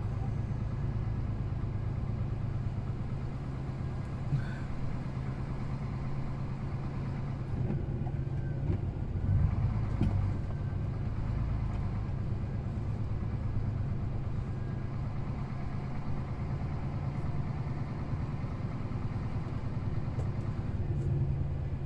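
Steady low drone of diesel engines, a tractor towing a truck through snow, heard from inside the truck's cab.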